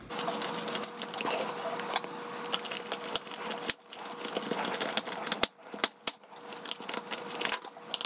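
Small precision screwdriver driving the screws back into the plastic case of a Yaesu MH-48 hand microphone: scraping and turning noises with many sharp clicks as the housing is handled, and a faint steady hum underneath.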